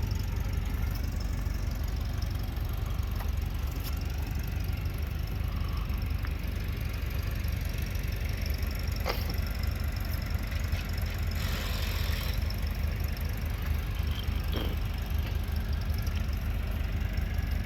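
An engine idling steadily, a constant low rumble.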